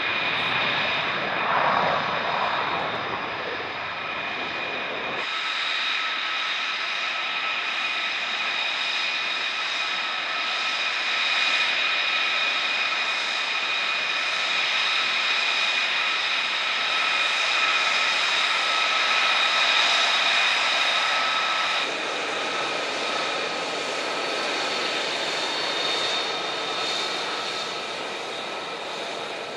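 Jet noise from RAAF F-35A Lightning II fighters, each running on a single F135 turbofan. A deep rumble fills the first few seconds. It then gives way to the steady high whine of a taxiing F-35A's engine, with several held tones above the rush.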